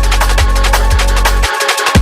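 Electronic drum-and-bass music with a heavy sustained bass and regular drum hits; the bass drops out briefly about one and a half seconds in.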